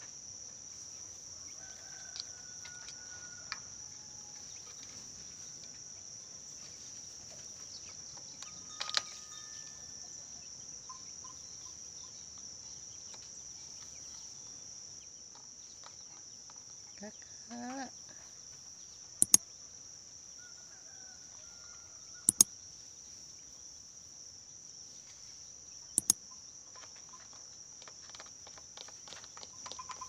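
Steady high-pitched insect chirring with a few sharp clicks. A short wavering call comes a little past halfway. Near the end a quick run of light taps comes as a sulphur-crested cockatoo's beak works in a plastic feed cup.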